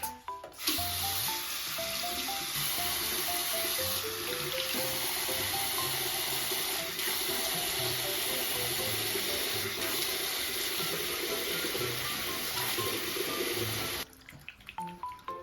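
Water running steadily, starting about half a second in and cutting off about a second before the end, with background music throughout.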